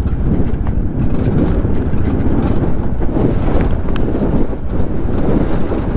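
Motorcycle running on a rough dirt track, with a steady low rumble of wind on the microphone and scattered faint knocks.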